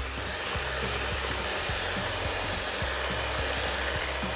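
Electric hand mixer running steadily, its beaters whirring through thick cheesecake batter in a bowl.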